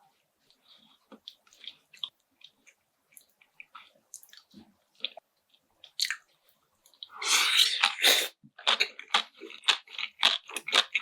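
A person chewing food close to the microphone: faint scattered mouth clicks and small chews, then about seven seconds in a loud noisy burst, followed by rapid crunchy chewing at about four to five chews a second.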